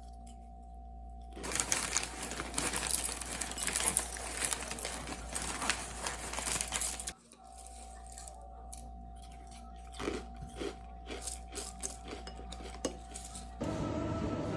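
Handling noises over a steady low hum with a faint steady tone: several seconds of dense crackling rustle, then a run of light clicks and clinks. Background music comes in near the end.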